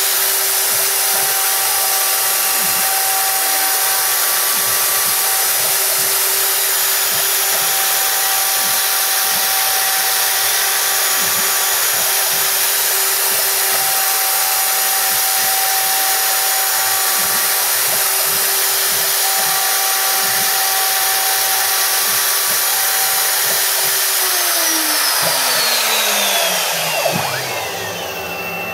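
Bosch 1617 router, used as a CNC spindle at about 25,000 RPM, running with a steady high whine while its quarter-inch two-flute carbide upcut bit mills RenShape tooling board. About 24 seconds in, the router is switched off and its whine falls steadily in pitch as it spins down.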